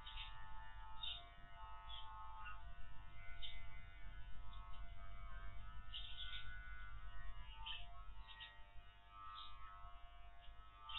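Electric dog-grooming clippers running with a steady buzz as they cut through a Spanish water dog's curly coat.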